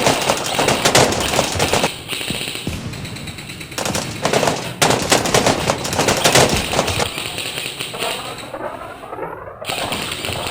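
Airsoft guns firing in rapid full-auto bursts, a fast clatter of shots: one burst at the start lasting about two seconds, and a longer one from about four to seven seconds in.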